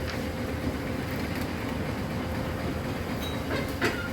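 Window air conditioner running with a steady mechanical hum and rumble and a faint steady tone. There is a single short sharp clack just before the end.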